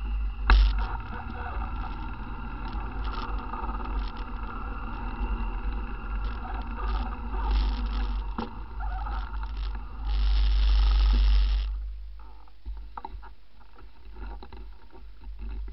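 ATV engine running while it is ridden, with a rattling, rumbling sound from the rack-mounted microphone and a loud rush of noise for about two seconds near ten seconds in. The engine sound cuts out about twelve seconds in, leaving a much quieter stretch with a few clicks.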